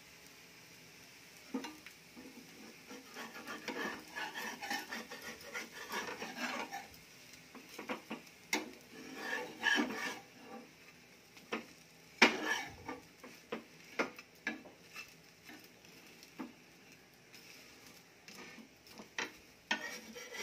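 Metal spatula scraping and clinking against a flat tawa as a dosa is loosened from the pan, folded and rolled over its potato filling. The strokes are irregular, with one sharp knock louder than the rest about twelve seconds in.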